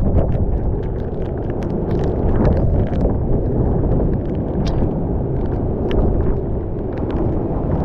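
Hurricane-force wind buffeting the camera's microphone in a loud, steady low rumble, with scattered sharp ticks from rain and spray striking the camera.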